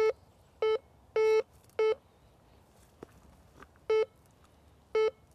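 Viking VK40 metal detector giving six short, identical low beeps at uneven intervals, one a little longer about a second in, as its concentric coil sweeps over a large iron target buried about 6 inches down. The detector still signals the deep iron even with its discrimination set very high.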